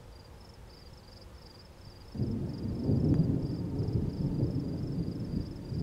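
Thunder rumbling, coming in suddenly about two seconds in and carrying on low and uneven. Insects chirp in a steady pulsing rhythm throughout.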